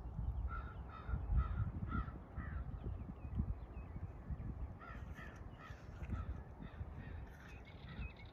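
Crow cawing in two runs of short repeated caws, about two a second: one run in the first few seconds and another in the middle.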